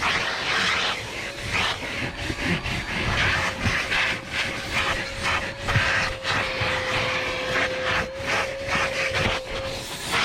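Vacuum cleaner running while vacuuming a car's interior: a steady motor whine under a rushing hiss of air that swells and drops every second or so as the nozzle works over the carpet and seats.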